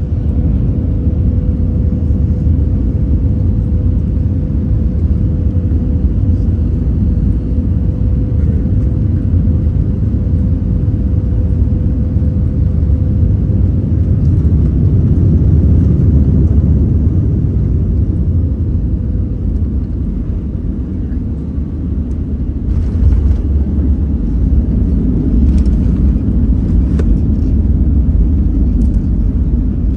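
Airliner cabin noise on landing: a steady low rumble with a faint steady whine that fades out. About three-quarters of the way through the rumble swells with a few knocks as the wheels touch down, then carries on as the plane rolls down the runway with its spoilers up.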